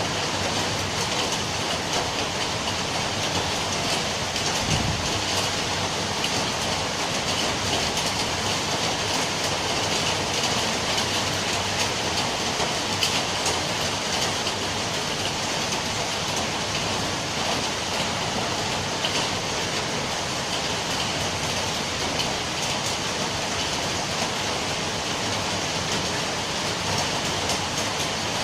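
Steady rain falling in an even, unbroken hiss, with a brief low thump about five seconds in.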